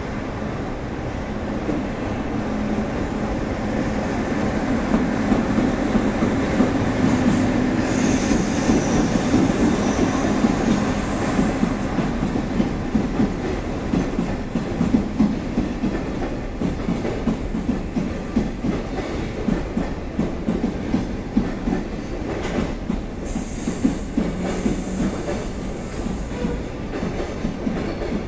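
EF65 electric locomotive passing, followed by a long string of Chiki flat wagons loaded with rails rolling by. A steady rumble builds over the first half, then the wagons' wheels clatter in a quick, uneven run of clicks.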